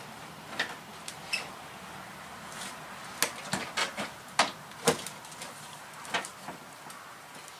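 Scattered sharp plastic clicks and knocks as a car's front bumper cover is pushed and fastened back onto the fender, with a burst of several in quick succession in the middle.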